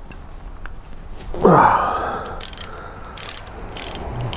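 A ratchet wrench clicking in short strokes, about two a second, as it loosens the lower fork clamp bolts. The strokes start about halfway through, after a brief gliding sound about a second and a half in.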